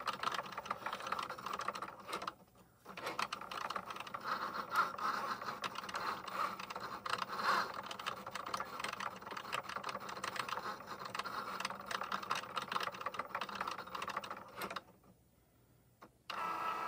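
Cricut Joy cutting machine cutting shapes from glitter cardstock: its small motors whir with fast ticking as the blade carriage and mat shuttle back and forth. The sound pauses briefly twice, and a steadier motor whine starts just before the end.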